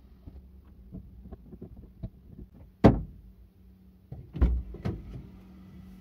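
Small clicks and handling noises around a car, then a single sharp knock about three seconds in, followed by a cluster of knocks and bumps as the car's driver's door is opened and the driver climbs into the seat, heard from inside the cabin.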